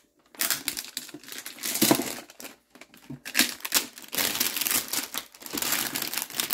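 Clear plastic shrink wrap crinkling and crackling as it is peeled and torn off a Pokémon card tin, in irregular bursts with short pauses.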